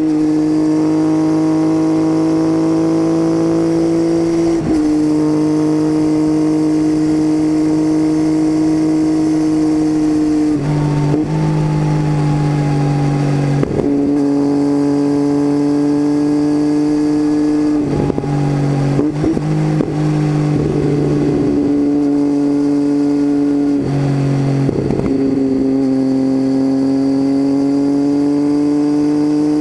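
Triumph Tiger 800 inline three-cylinder engine running through an unbaffled titanium Leo Vince exhaust, heard from under the seat as a steady drone with no wind noise. The drone breaks briefly every few seconds and settles at a slightly different pitch each time.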